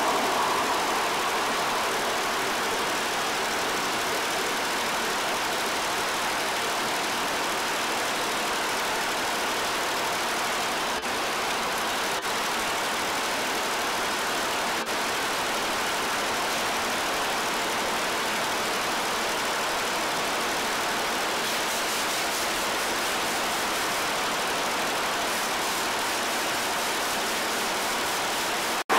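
Multi-needle computer embroidery machine running steadily while it stitches, a continuous even mechanical noise.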